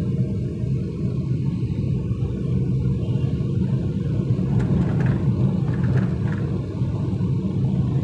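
Steady low rumble of a car driving, heard from inside the cabin: engine and road noise.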